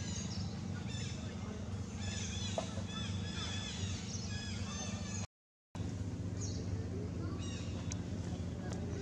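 Outdoor ambience of many short, high chirping animal calls over a steady low hum. The sound drops out completely for about half a second a little after five seconds in.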